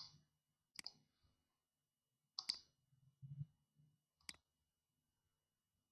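Four faint, sharp computer mouse clicks spaced a second or two apart, some of them double, with a soft low bump between the last two.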